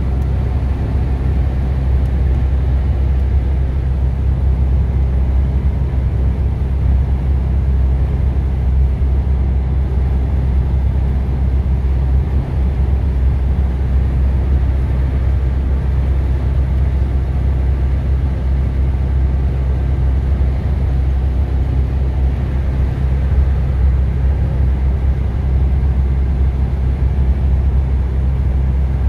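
Steady low rumble of a heavy vehicle's engine and tyres, heard from inside the cab while cruising at motorway speed.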